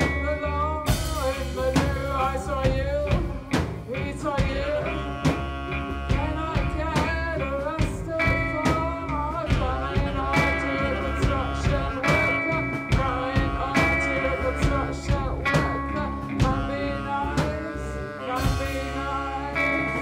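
Live band playing a song on drum kit and electric guitar, with a lead melody line over them.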